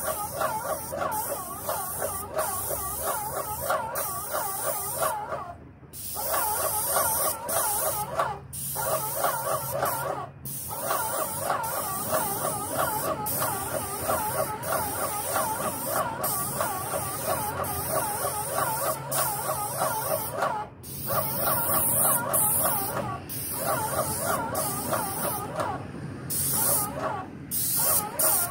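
Paint sprayer spraying a stone-coated metal roof: a steady hiss with a pulsing whine in it. The spray is cut by brief gaps about six times.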